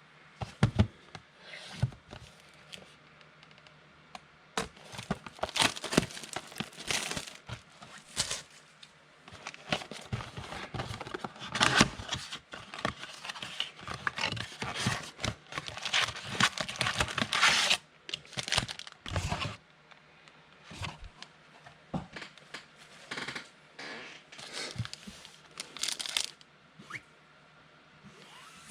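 A 2018 Donruss football card pack being opened by hand: the wrapper tears and crinkles in irregular bursts and the cards are handled, busiest through the middle stretch.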